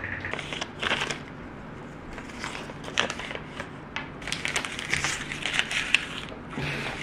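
Paper receipts being handled and crumpled: irregular crinkling and crackling, busiest about four to six seconds in.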